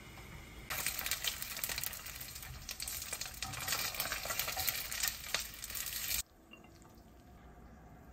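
Dense sizzling and crackling from the stovetop, where dumplings are frying in a pan and a pot of noodles has boiled over. It starts abruptly under a second in and stops abruptly about six seconds in.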